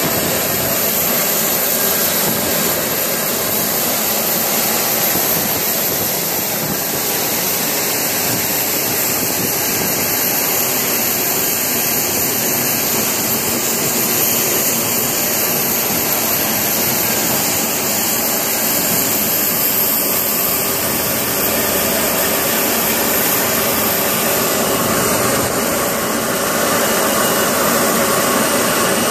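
Jet airliner engines running steadily: a constant rushing noise with a high-pitched whine over it, slightly louder near the end.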